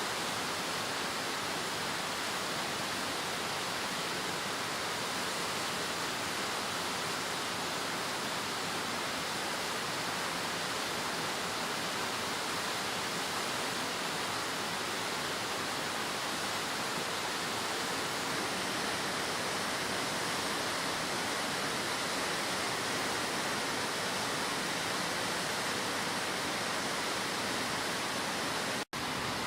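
Hakusen Falls' heavy flow of water pouring down the rock face, a steady, continuous rush of falling water. It breaks off for an instant near the end.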